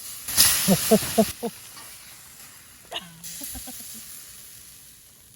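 A dog vocalizing in a quick run of about five short, pitched yips, then a whine that falls in pitch about three seconds in, followed by a few softer yips. A burst of hissing noise lasting about a second comes with the first yips.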